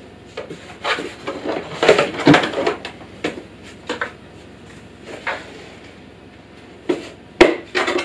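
Hard plastic parts of a Kärcher shop vacuum being handled: irregular knocks, clacks and scraping. There is a busy patch about two seconds in and one sharp, loud knock near the end.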